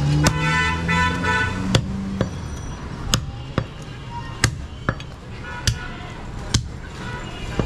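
Heavy butcher's cleaver chopping through mutton and bone onto a wooden log chopping block, about ten sharp chops at uneven spacing.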